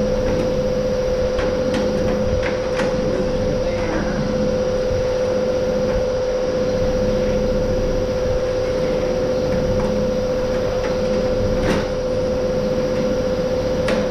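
Steady mechanical hum with one constant mid-pitched tone, under a few scattered light knocks and clicks of metal being handled.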